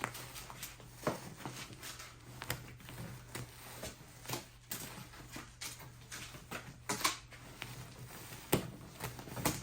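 Fluffy slime being stretched and shaped by hand, giving irregular sticky clicks and small crackling pops.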